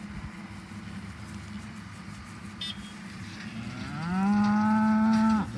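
A cow moos once past the middle: a long call that rises at the start, holds level and cuts off near the end. A faint steady low hum lies underneath.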